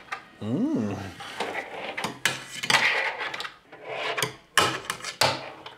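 A fingerboard (finger skateboard) rolling, scraping and clacking on a wooden ledge and plywood tabletop: several sharp clacks of the board hitting the wood with rolling and grinding noise between them.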